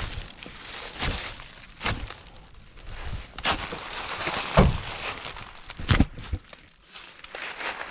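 Footsteps crunching through dry fallen leaves and twigs on the forest floor, a handful of heavy crunches spaced roughly a second apart, the loudest about four and a half and six seconds in.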